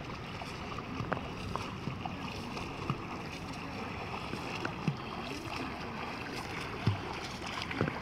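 Small waves lapping against a stand-up paddleboard: a steady soft wash of water with a few little splashes and drips scattered through it.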